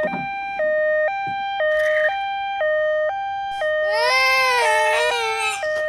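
Two-tone hi-lo ambulance siren, switching between a higher and a lower note about every half second. About four seconds in, a high, wavering cry like a child's comes over it for about two seconds.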